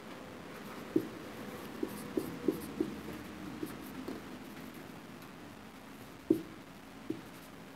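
Dry-erase marker writing on a whiteboard: a run of irregular taps and short strokes as symbols and numbers are written, with the sharpest tap about six seconds in.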